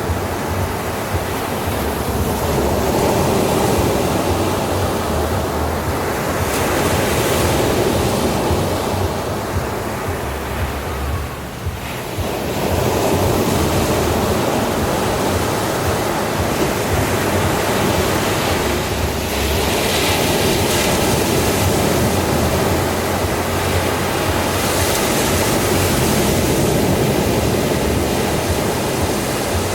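Sea waves washing onto a beach: continuous surf that swells and eases, with a short lull about twelve seconds in.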